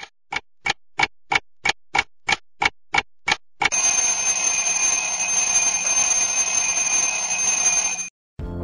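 A clock ticking, about three ticks a second, then an alarm clock ringing loudly and steadily for about four seconds before it cuts off suddenly.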